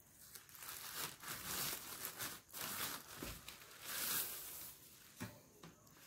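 Packaging crinkling and rustling in uneven bursts as a portable Bluetooth speaker is unwrapped, with some tearing.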